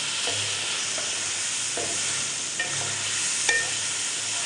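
Chicken pieces frying in oil in a metal karahi, sizzling steadily, while a wooden spatula stirs them and knocks against the pan about five times, the loudest knock about three and a half seconds in, with a brief ring from the metal.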